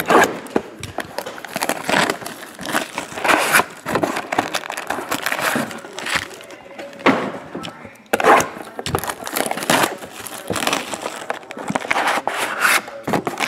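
Plastic box wrapping and foil card packs crinkling and tearing as a sealed box of trading cards is unwrapped and opened, in a run of irregular rustles and rips.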